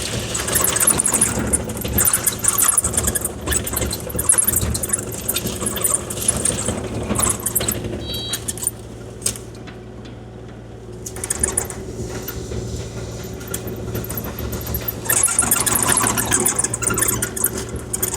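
Kubota KX040-4 mini excavator's diesel engine running steadily while the bucket scrapes and drags gravel across the driveway, with metallic rattling and grinding; the scraping eases off about halfway through and picks up again near the end.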